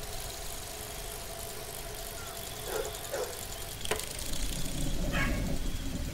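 A quiet low rumble that grows louder in the second half, with a few short faint chirps and one sharp click about four seconds in.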